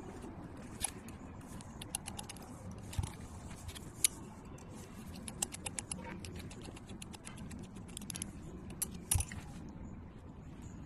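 Small metal parts and tools clicking and clinking against each other in irregular light taps, with a couple of sharper clicks, during hand work on a small model hydraulic pump.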